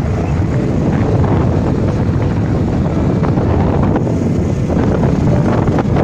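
Wind buffeting the microphone of a camera on a moving road vehicle, over a steady rumble of engine and road noise.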